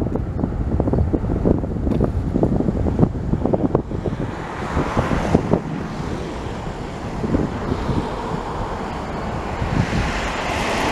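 The two GE90-115B turbofans of a Boeing 777-300ER at takeoff thrust on the takeoff roll: a loud rumbling roar full of crackle, with a hissier roar building from about four seconds in. Wind buffets the microphone.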